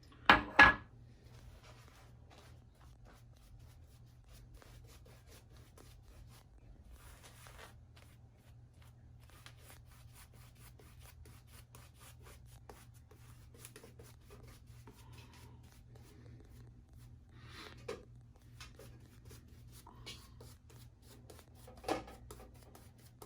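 Two sharp knocks right at the start, then faint rubbing and small handling noises over a steady low hum, with two brief louder rustles near the end.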